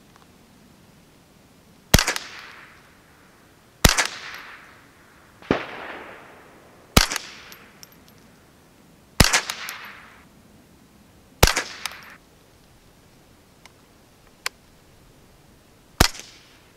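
Ruger 10/22 semi-auto .22 LR rifle firing Federal 1200 fps high-velocity rounds: six sharp shots about two seconds apart, each trailing off in a short echo. After a pause with a couple of faint clicks, one more shot comes near the end. This is a CCI Quiet 710 fps round, way quieter, and too weak to eject the spent case.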